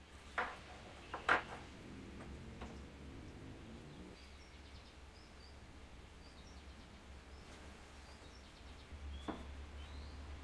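A few sharp knocks as small ceramic bowls and vegetables are set down on a wooden tabletop, the loudest just over a second in and another near the end, over a steady low hum. Faint bird chirps come through in the second half.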